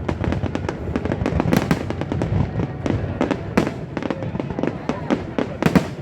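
Aerial fireworks bursting in a rapid, irregular run of bangs and crackles over a continuous rumble, with a few louder bangs about one and a half seconds in, midway, and near the end.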